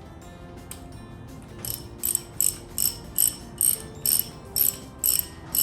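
Ratchet wrench being worked in quick strokes: bursts of rapid pawl clicking, about two a second, starting a little under two seconds in.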